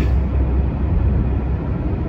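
Ise Railway diesel railcar running along the track, a steady low rumble heard from on board.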